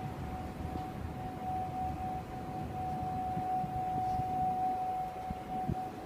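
A strange noise in the sky: one steady tone holding a single pitch without rising or falling, over a low rumble.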